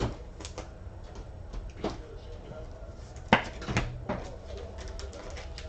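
A few light knocks and taps from cards and boxes being handled and set down on a table, the loudest about three and a half seconds in.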